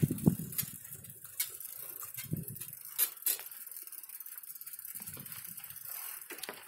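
Bicycle rattling as it rolls over a rutted dirt track, with irregular sharp clicks and knocks from the frame and parts over a faint low rumble.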